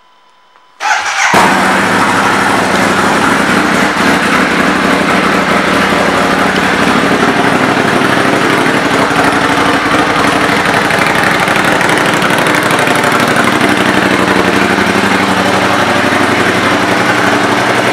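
A 2016 Ducati Monster 821's 821 cc L-twin engine starts up about a second in, then runs steadily and loudly.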